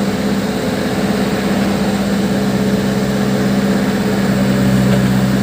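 Case 580 Super backhoe loader's diesel engine running steadily.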